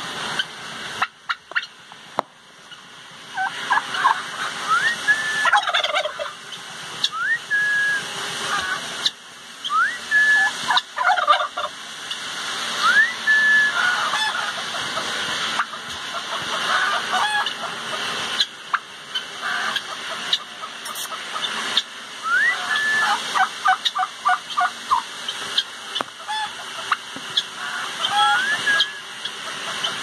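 Domestic turkey tom gobbling several times in rapid rattling bursts while strutting in display. Short rising whistled calls from other birds in the pen come between the gobbles.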